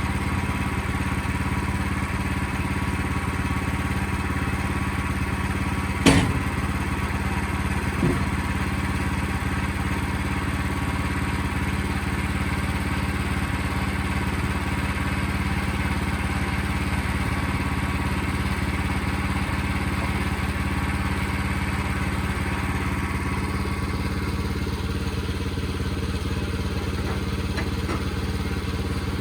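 Sawmill engine running steadily, with a sharp knock about six seconds in and a lighter one about two seconds later.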